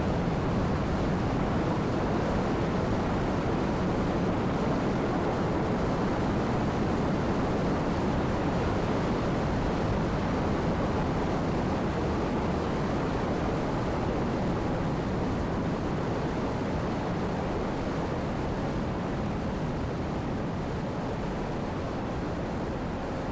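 A steady wash of rumbling, hissing noise with no pitch or beat, slowly fading away.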